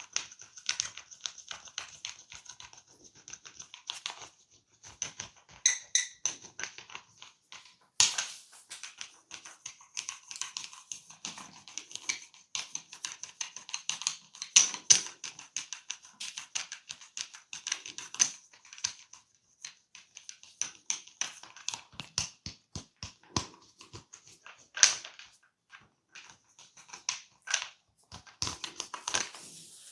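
Close-miked scratching and crackling of a barber's hands working on a client's head, in dense irregular strokes with a few sharper clicks, the loudest about eight seconds in and again near 25 seconds.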